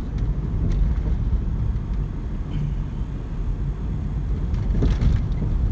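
Road and engine noise of a car being driven, heard from inside the car: a steady low rumble with a few faint clicks.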